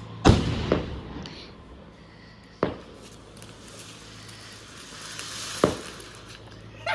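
Anar (flowerpot fountain firework) hissing as it sprays sparks, the hiss building from about three seconds in. Three sharp firecracker bangs crack through it: one just after the start, one about two and a half seconds in, and one near the end.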